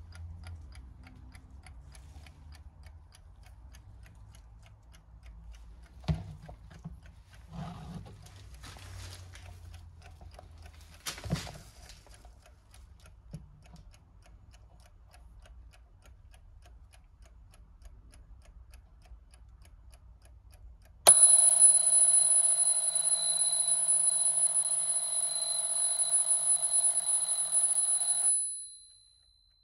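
Sevani mechanical alarm clock ticking quietly, with a few handling clicks. About two-thirds of the way in, its hammer suddenly starts ringing loudly against the twin metal bells for about seven seconds. The ringing dies away quickly near the end as a hand holds the bells.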